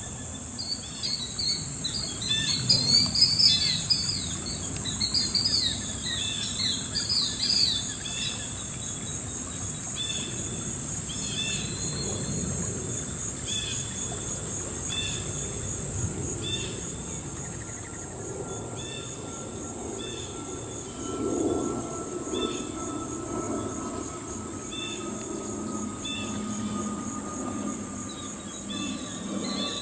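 Killdeer calling, a rapid run of high, loud notes through the first several seconds, over a steady high-pitched insect drone. Later, short chirps repeat about once a second.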